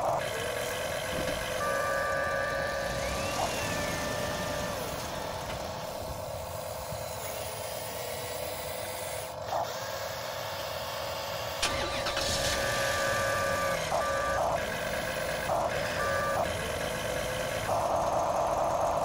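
Huina 1593 RC excavator's electric motors whining in steady tones as the boom, bucket and cab move. The pitch shifts as each motion starts and stops, with short rising and falling glides now and then.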